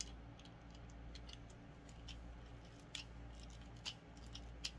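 Faint, irregular small clicks and ticks of a tool and metal parts as the tonearm's bearing-point screws are worked out, over a steady low hum.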